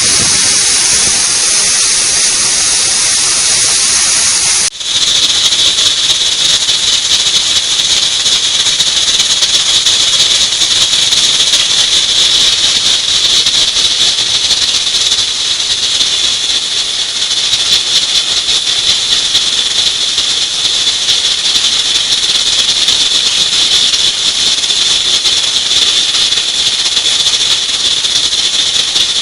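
Pressure cooker whistle blowing off steam: a loud, continuous hissing whistle. It breaks off for an instant about five seconds in, then goes on with a steadier high whistling note. The whistle is the sign that the cooker has come up to pressure.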